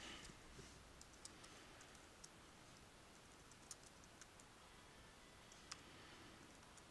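Faint computer keyboard typing: scattered, irregular keystroke clicks as a short line of text is typed.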